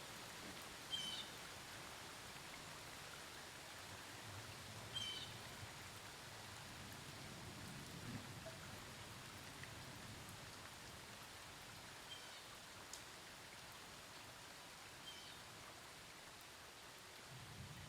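Light, steady rain falling during a thunderstorm, with a few short high animal chirps, about four, spread through it. A low thunder rumble starts to build right at the end.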